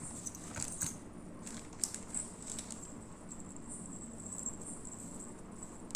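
Faint scattered light clicks and rustles of earrings and their clear plastic packets being handled on a tabletop, mostly in the first half, over a steady faint high hiss.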